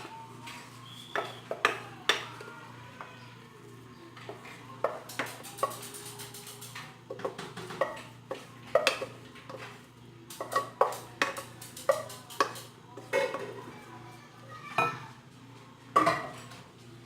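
A spoon clinking and scraping against a bowl in a long run of irregular taps and knocks, some briefly ringing, while mashed potato is scooped in with ground beef.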